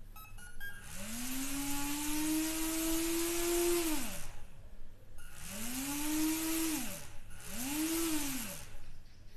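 Small brushed 180-size DC motor with a little plastic propeller, run through a brushed ESC from the transmitter's throttle, spinning up three times. Each time a whine rises, holds with an airy hiss from the propeller, then winds down. The first run lasts about three seconds and the next two are shorter.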